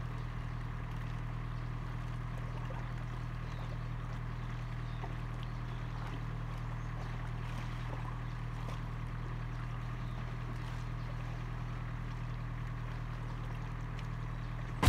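Small waves lapping against shoreline rocks over a steady low rumble, with faint small splashes. It ends in a sharp click.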